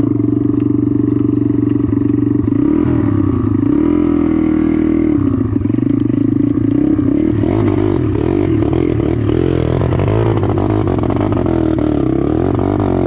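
Four-stroke dirt bike engine idling steadily, its pitch rising and falling a few seconds in as the throttle is opened a little.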